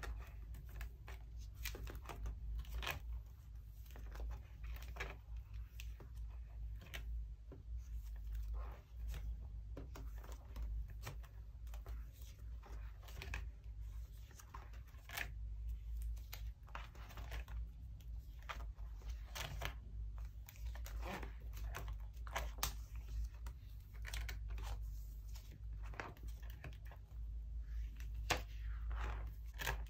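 Plastic binder pocket sleeves crinkling and rustling as the pages of a photocard binder are turned and handled, with irregular soft clicks and taps, over a low steady hum.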